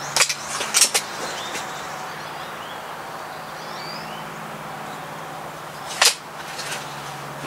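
A Crosman Shockwave .22 break-barrel air rifle fires a single shot, a sharp crack about six seconds in. A few quieter sharp clicks come near the start, and faint bird chirps sound over a steady low hum.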